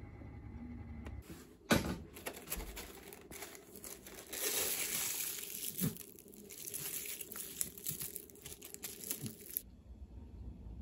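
Plastic film crinkling and rustling as a glass jar covered with a plastic sheet is handled, loudest in the middle, with a sharp knock near the start and a lighter one about six seconds in.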